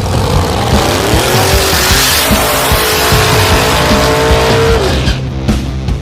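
A car engine held at high revs while its tyres squeal loudly. The engine note climbs in the first second, holds, and falls away about five seconds in. Background music with a steady beat plays underneath.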